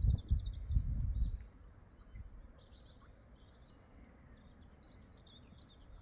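Small songbirds singing, short chirping and trilling phrases repeated throughout. For the first second and a half a low rumble on the microphone is the loudest sound, then it drops away and the birdsong carries on over quiet.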